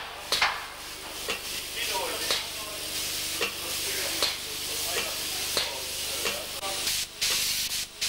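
Red paint being applied to a steam locomotive's spoked driving wheels: a steady hiss with short scratchy strokes about twice a second.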